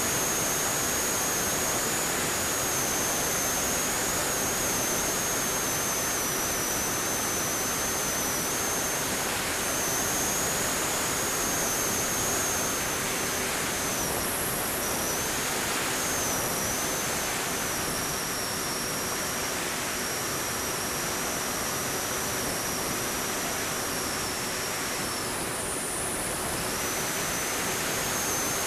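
Wind rushing past the onboard camera of a Ritewing Z3 flying wing in flight, with the high whine of its electric motor and propeller wavering over it. The whine fades and dips in pitch briefly about halfway through, and again near the end.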